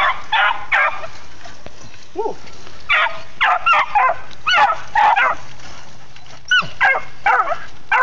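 Pack of beagles yipping and barking in short, arching calls, worked up over a freshly shot rabbit held just above them. A few calls at first, then a quick run of yips from about three seconds in.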